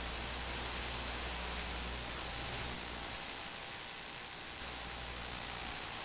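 Steady static hiss with a low hum underneath that fades out about three seconds in and briefly returns near the end, with a few faint clicks in the first few seconds.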